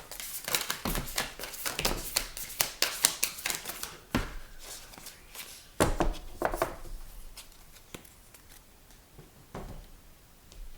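Tarot cards being shuffled by hand: a quick run of card flicks and rustling for the first few seconds, then a few separate slaps and rustles as the cards are handled and laid out.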